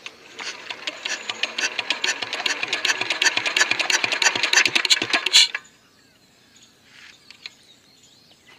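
Kirloskar Comet single-cylinder diesel engine being cranked fast by hand without firing: a rapid clatter of clicks that speeds up, then stops suddenly after about five and a half seconds. The engine won't start, and the mechanic finds its compression very low.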